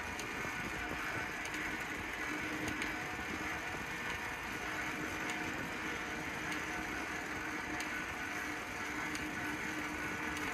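A noisy bicycle being ridden over wet asphalt: a steady hiss of tyres and drivetrain, with occasional faint clicks and rattles from the bike.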